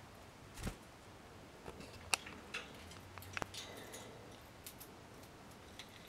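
A small parrotlet's beak and feet making scattered sharp clicks and taps as it climbs and picks at a hanging wooden foraging toy in its cage, the loudest tap about two seconds in.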